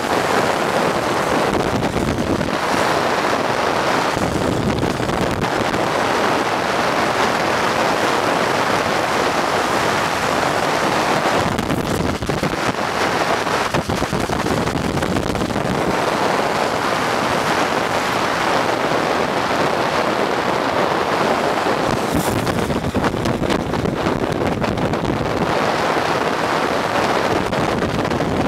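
Loud steady rush of wind over the microphone of a camera moving at downhill speed, with road noise underneath. It swells and eases every few seconds.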